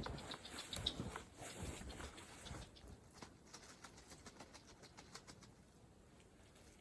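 Footsteps crunching through deep snow: a quick run of crunches in the first few seconds that thins out to faint scattered ticks.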